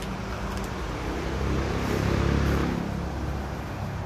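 A motor vehicle engine running, growing louder to a peak a little past two seconds in and then fading as it passes by.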